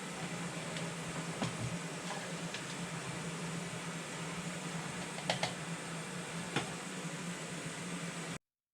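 A steady low machine hum, like a running fan or heater, with a few light clicks and knocks of something being handled. It cuts off suddenly near the end.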